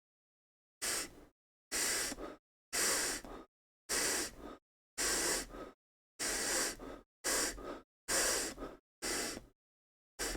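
A person repeatedly drawing breath in sharply through the nose, nine short hissing sniffs at about one a second, taken as a hiccup remedy.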